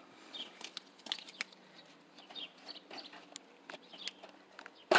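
Chickens clucking in short, scattered calls over light clicks and rustling, with a sudden loud burst of noise right at the end.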